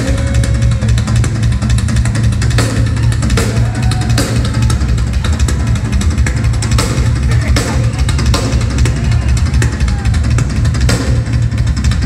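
Rock drum kit solo played live and loud: bass drum and snare with sharp cymbal crashes at irregular intervals.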